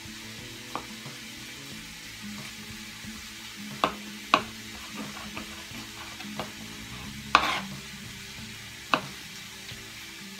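Chef's knife slicing mushrooms on a plastic cutting board: about six sharp knocks at irregular intervals, the loudest about seven seconds in. A steady low sizzle from a frying pan runs underneath.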